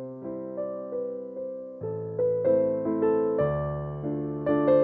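Background piano music: a gentle melody of struck notes, each fading away before the next.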